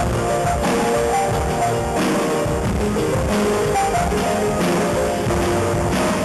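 Live band music: an electronic keyboard played with a drum kit, a steady beat under held keyboard notes.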